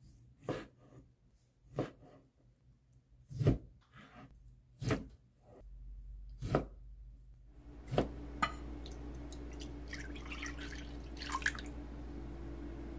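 Water dripping slowly, six single drops about one every second and a half. After that a steady low hum sets in, and near the end liquid pours briefly into a bowl.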